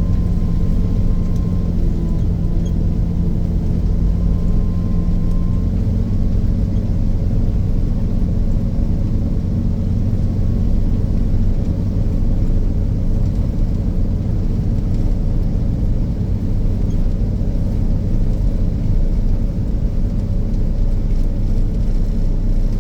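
Snowcat grooming machine's diesel engine running steadily under load, a low even drone heard from inside the cab.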